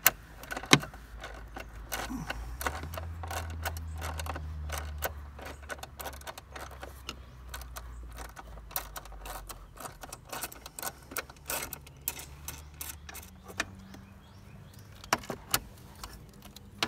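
Hand ratchet clicking in short irregular strokes on a socket and extension, backing out 13 mm bolts from a Jeep Wrangler JK's A-pillar and visor mount, with small metal clinks of the tool. A low rumble sits underneath for a few seconds in the first half.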